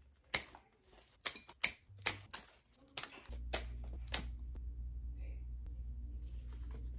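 Scissors snipping flower stems, with stems knocking against a glass vase: about eight sharp clicks over the first four seconds. About three seconds in, a steady low hum starts and runs on.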